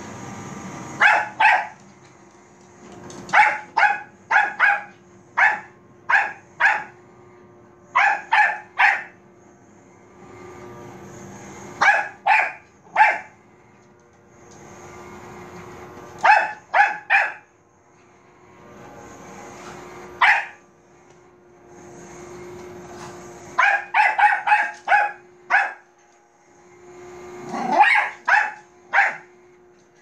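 Bichon Frise barking at a robot vacuum cleaner in short, sharp volleys of two to five barks, repeated about every few seconds. Underneath, the robot vacuum runs with a steady hum.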